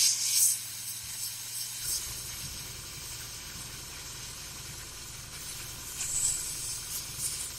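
Ultrasonic cleaner running, a crackling sizzle-like hiss, with a low steady buzz coming in about two seconds in.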